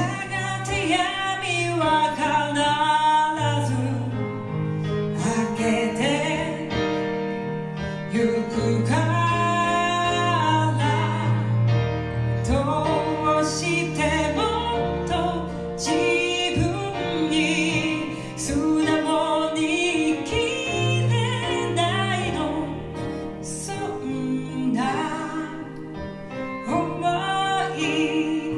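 A woman singing a song with a live band accompanying her, with steady bass notes under the melody throughout.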